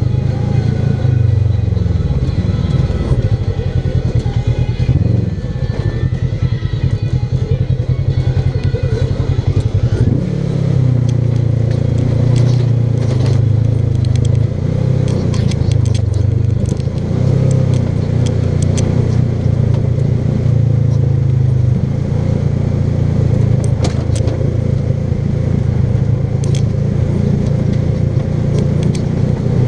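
Polaris RZR XP 1000 side-by-side's parallel-twin engine running steadily under throttle, easing off briefly a couple of times and picking up again, with scattered clicks and knocks over it.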